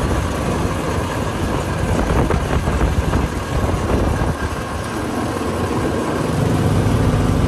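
Engine of an old farm machine, about 25 to 30 years old, running steadily, a little louder about six seconds in.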